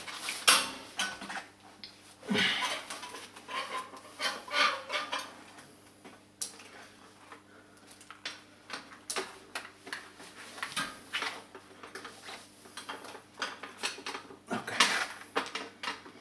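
Irregular metallic clinks, taps and rattles from a bicycle front wheel and its parts being handled and fitted back onto the bike.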